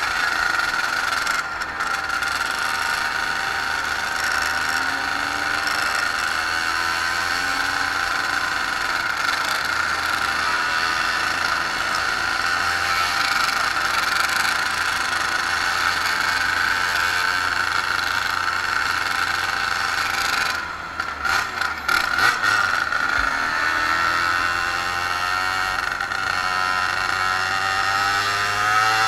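Small moped engine running steadily at riding speed, its pitch wavering. About twenty seconds in it drops back and sputters briefly, then picks up again with a rising pitch.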